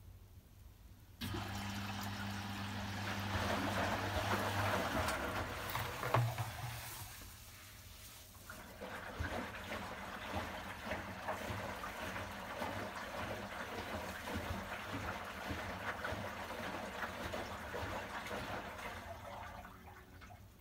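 Washing machine taking in water: water starts rushing in suddenly about a second in, with a low hum for the first few seconds. The flow eases briefly midway, then runs again until it fades near the end.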